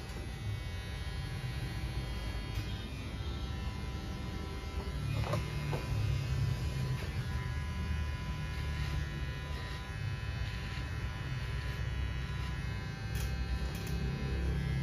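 Electric hair clippers buzzing steadily as they cut the short hair at the side of a head, a little louder about five seconds in.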